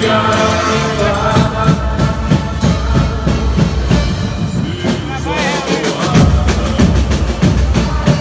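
Live boi-bumbá music from a band: drums and percussion keep a steady, driving beat under keyboard and singing voices.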